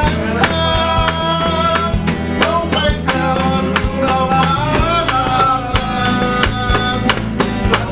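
Background song with a steady drum beat, guitar and a sustained melody line.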